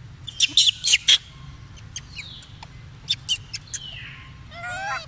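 Baby monkey squeaking: a quick run of sharp high chirps, a few short squeaks that fall in pitch, and a shrill, wavering squeal near the end.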